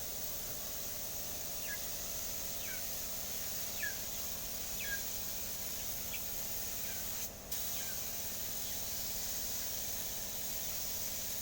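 A bird repeats a short, sharply falling chirp about once a second for several seconds, over a steady high hiss.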